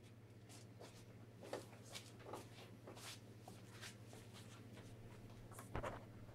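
Quiet garage room tone with a steady low hum, and scattered faint footsteps and small knocks from a person moving about. The most distinct knock comes near the end.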